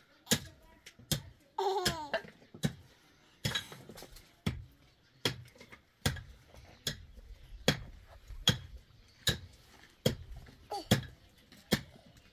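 Regular sharp knocks of a long-handled hand tool striking the ground, about one every 0.8 seconds. A small child gives a short giggle about two seconds in.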